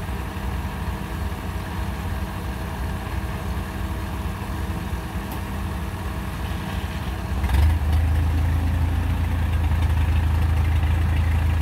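Kubota DC93 rice combine harvester's diesel engine running steadily with a low drone, stepping up louder about two-thirds of the way through.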